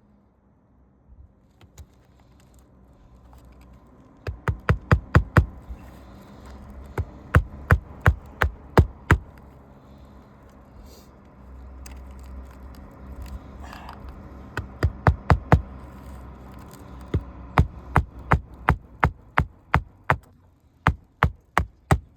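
Hammer blows on an asphalt shingle roof. They come in quick runs of several strikes with pauses between, and a steadier run of about two blows a second near the end.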